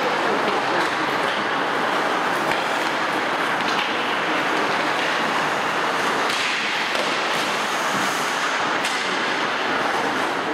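Steady rushing ambience of an indoor ice rink during hockey practice, with a few sharp clacks of sticks and pucks.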